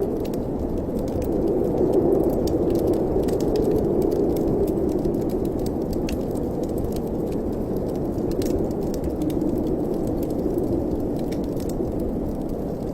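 Wind blowing in a steady low rush that swells and eases slowly, with faint scattered crackles from a wood fire.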